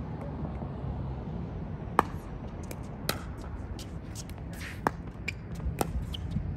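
Pickleball paddles hitting a plastic pickleball in a rally: a string of sharp pops about a second apart, the one about two seconds in the loudest, over a steady low rumble.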